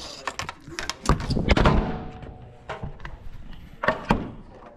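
Cordless drill running briefly about a second in, drilling a hole through a bow-fishing arrow shaft, amid knocks and clatter of handling on a wooden workbench.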